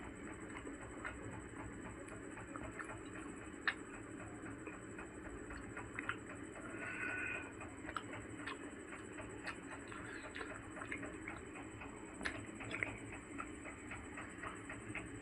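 Close-up mouth sounds of eating: irregular small clicks and smacks of chewing, over a steady faint hum.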